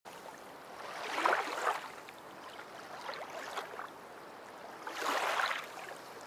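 Small lake waves lapping and splashing softly, swelling twice, about a second in and again near the end.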